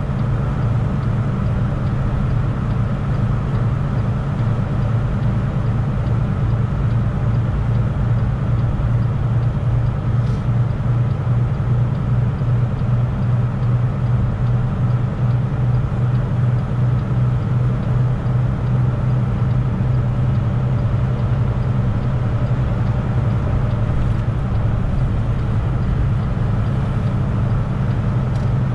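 Semi truck's diesel engine running at a steady cruise, a constant low drone heard from inside the cab, with road noise under it.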